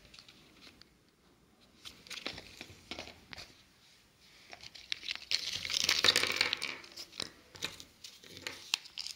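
Crinkling and rustling of paper and thin plastic as the toy and its folded paper leaflet are handled out of a Kinder Joy plastic capsule, with scattered small clicks of plastic parts. The longest, loudest stretch of crinkling comes about five to seven seconds in.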